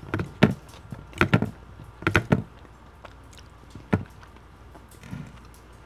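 Metal fork clinking and scraping against a ceramic baking dish while scooping up gravy-soaked fries and cheese curds: a few short clusters of sharp taps and one lone tap near the end.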